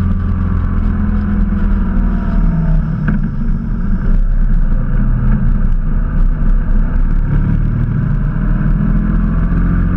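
Motorcycle engine running steadily under way, with wind noise over the microphone. The engine gets a little louder after about four seconds.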